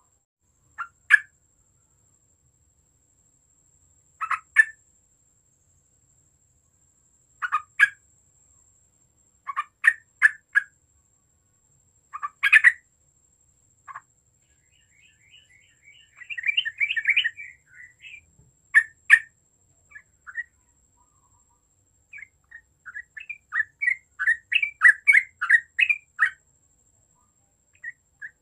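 Yellow-vented bulbul (trucuk) singing in short bubbly phrases of a few quick notes, with pauses of a few seconds between them; a longer chattering run comes about halfway through, and a long string of rapid notes near the end.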